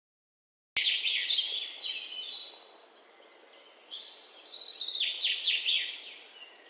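Songbird chirping in two quick runs of high twittering notes and downward sweeps, with a quieter lull between them. It cuts in suddenly about a second in and cuts off at the end.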